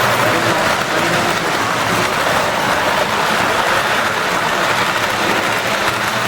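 O-scale model train running on its track: a steady rumbling noise with a faint hum, unbroken throughout.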